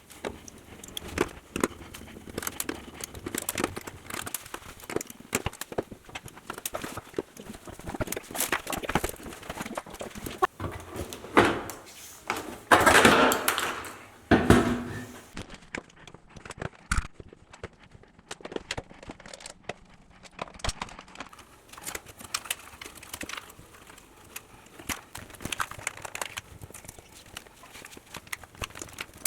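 Clicks, knocks and scraping of hand work on a dishwasher door's plastic parts as it is dismantled and unplugged. There is a louder, longer scraping rub about halfway through and a single sharp knock a few seconds later.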